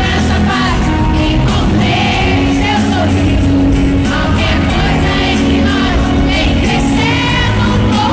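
Live pop concert music over an arena sound system: a sung melody over steady heavy bass, with the crowd singing along.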